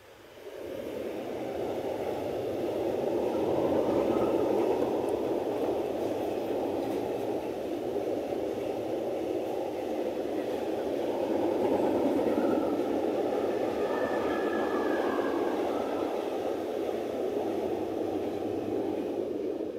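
A train passing close by: a steady rushing rumble that builds over the first few seconds and holds, with a faint higher squeal about two-thirds through, then drops away quickly at the end.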